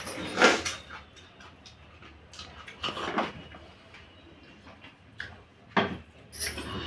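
Eating noises at a table: a handful of short, sudden sounds of food being handled on steel plates and eaten, the loudest about half a second in.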